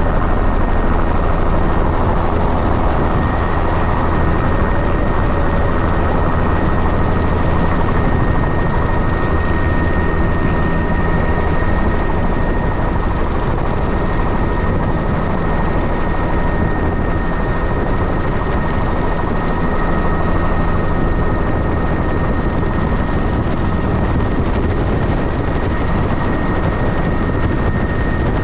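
Helicopter rotor and engine running steadily in flight, heard from aboard: a fast low beat of the blades under a steady high whine.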